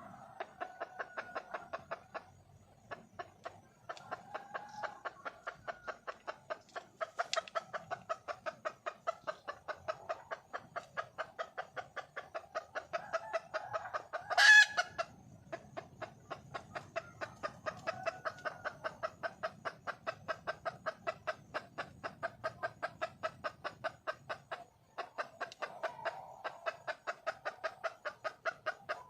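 Red junglefowl hen clucking in a fast, steady run of about four to five clucks a second, the call a wild hen makes to draw a mate. The run pauses briefly a few times, and one louder, sharper call comes about halfway through.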